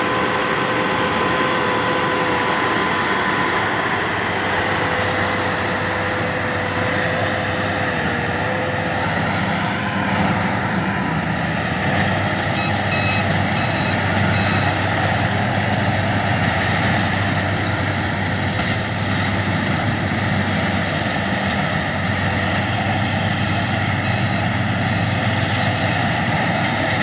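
Wheat combine harvester running steadily under load, with a steady whine over the engine for the first several seconds.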